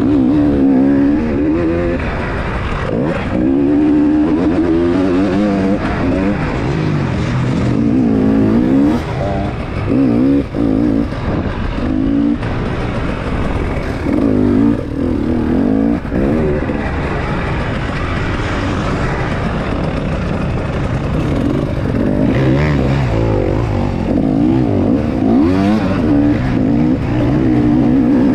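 Enduro motorcycle engine heard up close from the rider's own bike, its pitch rising and falling over and over as the throttle is worked and gears are changed on a rough dirt track.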